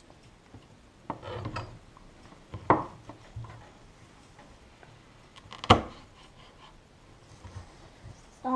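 Kitchen knife knocking and scraping on a cutting board as a chili is cut, with a few sharp clacks, the loudest a little over halfway through.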